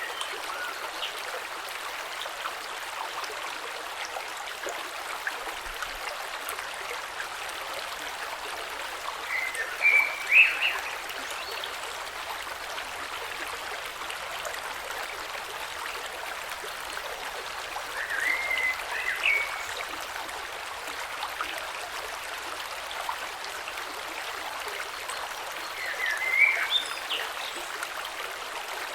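A gentle creek flowing over stones makes a steady rushing and trickling sound. A short chirping call rises above it three times, about ten seconds in, just past the middle and near the end.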